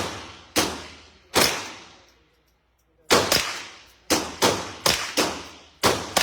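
Glock 19 MOS 9mm pistol fired about ten times in single shots at an uneven pace, with a pause about two seconds in. Each shot is followed by a ringing echo. The magazine is being shot empty.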